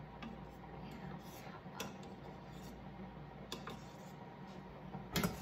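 Spoon clinking and tapping against a pot or bowl while skimming foam off the top of fresh soy milk, a few scattered taps with a louder knock near the end, over a faint low hum.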